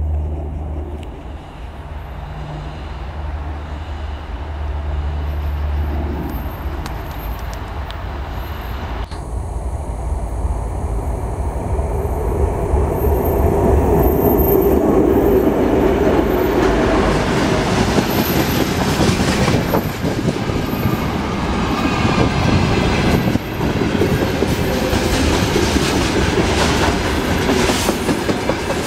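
2M62U twin-section diesel locomotive with its two-stroke diesel engines running under load, droning steadily as it approaches and swelling to its loudest as it passes about halfway through. Freight wagons then roll by with a steady clickety-clack of wheels over the rail joints.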